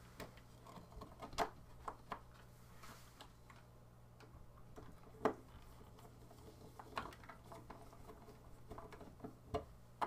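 Faint scattered clicks and taps of a hand screwdriver turning the mounting screws of a 3D-printed plastic switch plate, a few sharp ticks a second or two apart over a steady low hum.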